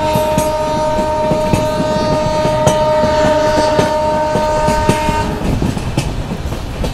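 Train horn sounding one long two-note blast that stops about five seconds in, over the clickety-clack of a moving train's wheels on the rail joints.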